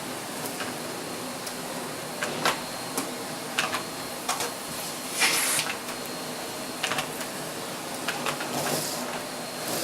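Irregular sharp clicks and knocks, with two short hissing rushes about five seconds in and near the end, over a steady background hum.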